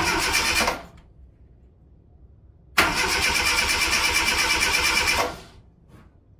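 Starter motor of a Zastava 1100p cranking the engine in two tries: a short burst of under a second, then about two and a half seconds of steady cranking, ending abruptly. The engine does not catch: a start after a long standstill, tried without throttle.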